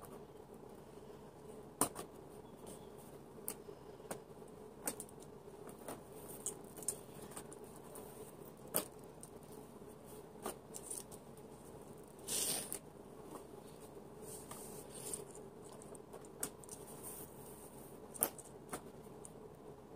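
Light clicks and taps of clear plastic hamster-cage panels being handled and slotted together, coming irregularly, with a brief rustle or scrape a little past halfway. A faint steady hum runs underneath.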